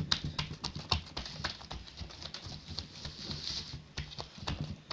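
Fingers and palms patting and pressing a round of filled yeast dough in a metal baking pan, pressing it down firmly before it is left to rise. A run of irregular soft pats and taps, several a second.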